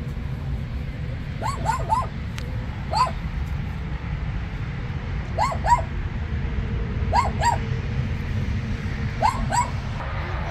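Small shaggy dog yipping at play: short, high yips in quick runs of two or three, about five runs in all.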